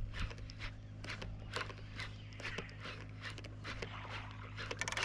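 Baitcasting reel being cranked during a retrieve: irregular clicks and ticks from the reel and rod handling, becoming a quick run of rapid ticks near the end.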